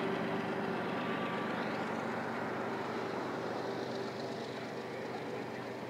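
Steady vehicle running noise with a faint steady hum, gradually getting quieter.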